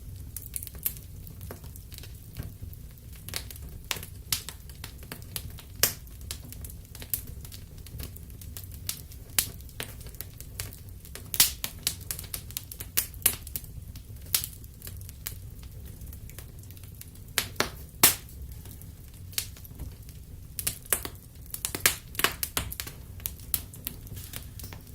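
Wood fire crackling in a fireplace: irregular sharp pops and snaps, a few louder ones, over a low steady rumble of the burning fire.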